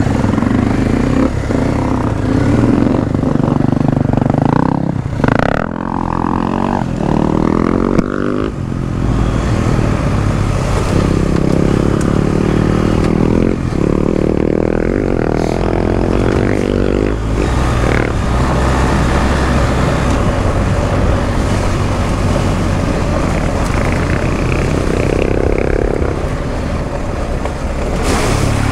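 BMW R1250 GS Adventure's boxer-twin engine under way, its pitch rising and falling several times with the throttle.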